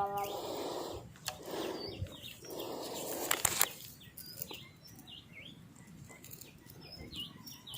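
Small birds chirping: short high calls repeated over and over, over a soft rushing noise in the first half and a few sharp clicks about three and a half seconds in.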